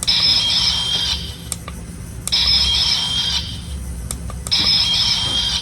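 Eleking's monster cry played from a button on a Bandai toy spaceship through its small built-in speaker: a high-pitched electronic squeal about a second long, repeated three times.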